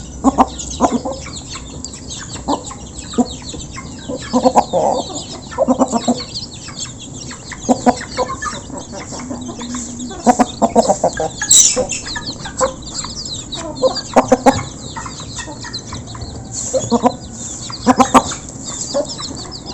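A flock of village chickens clucking while feeding, in short, irregular clusters of clucks, with a few sharp clicks among them.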